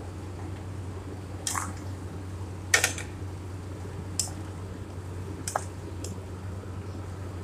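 Raw potato cubes tipped into a pan of fried onion-tomato masala, with a loud clatter about three seconds in, then a wooden spatula scraping and stirring in the pan a few times. A steady low hum sits under it all.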